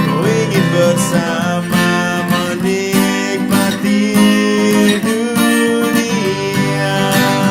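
Recorded song in a passage without vocals: strummed guitar chords carry the music, with a sliding lead note about a second in.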